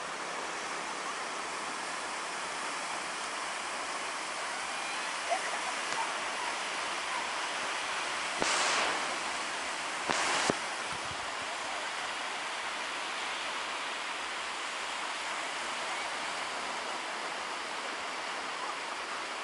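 Small waves breaking and washing up a sandy beach, a steady hiss of surf, with two short louder rushes near the middle.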